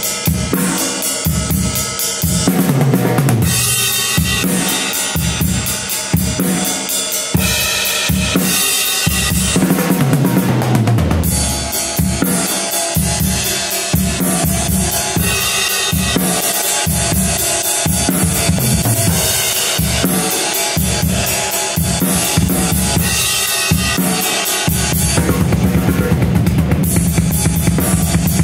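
Full drum kit played in a rock groove, the ride pattern on two ride cymbals, a Sabian AA 21-inch Rock Ride on the left and a Zildjian A Ping Ride on the right, over bass drum and snare. A fill steps down in pitch around ten seconds in, and the last few seconds are a fast unbroken run of drum strokes.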